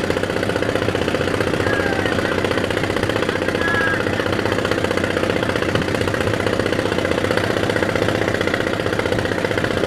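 A fishing trawler's diesel engine running steadily, with a rapid, even knocking beat.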